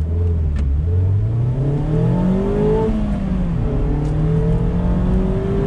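2019 Mazda MX-5 Miata Club's 2.0-litre inline-four accelerating from a standstill, heard from the open cockpit. The revs climb, fall with an upshift about three seconds in, then climb again.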